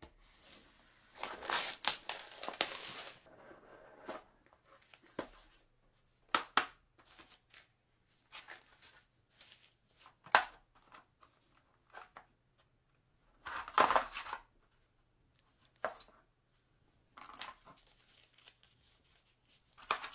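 A smartphone's retail box and packaging being opened and handled, heard as intermittent rustling, tearing and sharp clicks. The longest stretch comes about a second in and another strong burst about two-thirds of the way through.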